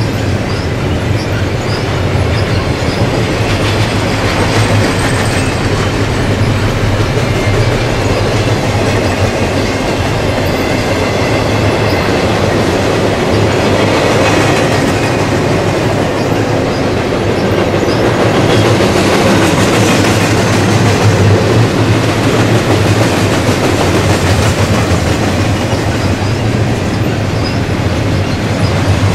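Double-stack intermodal freight train rolling past, a steady loud rumble of well cars and their wheels running over the rails.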